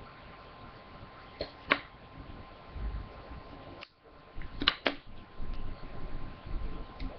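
A craft knife and other small modelling tools being picked up and set down on a paper-covered table: sharp taps in two pairs, about a second and a half in and near five seconds, with low bumps of hands against the table between, over a faint steady hum.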